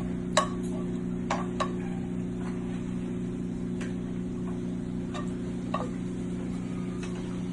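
Scattered light clinks and taps of utensils against plates and serving ware during plating, about five short ringing ticks spread over several seconds, over a steady low hum.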